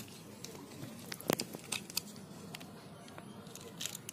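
A few sharp clicks and taps of small plastic toy-car parts being handled, the loudest about a second in, with a couple more near the middle and one near the end, over a low steady background hum.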